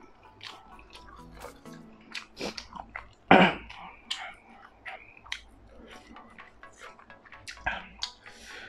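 A person chewing a mouthful of food close to the microphone: wet clicks and smacks of the mouth, with one louder mouth sound about three seconds in.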